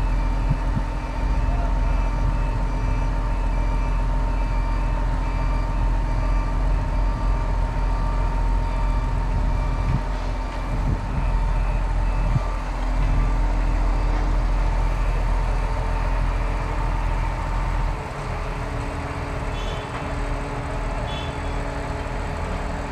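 Heavy diesel engine of a truck-mounted mobile crane running steadily as it hoists a precast concrete bridge segment, with a steady whine over the engine rumble. A repeating electronic warning beep sounds through the first half, and the engine note drops slightly near the end.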